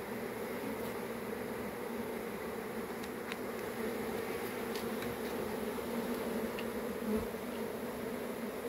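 A swarm of honey bees buzzing, a steady dense hum of many wings. A brief low bump sounds about seven seconds in.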